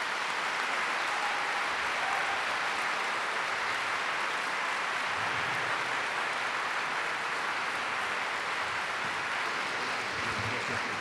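Large audience applauding steadily, a long unbroken round of clapping at the close of a talk.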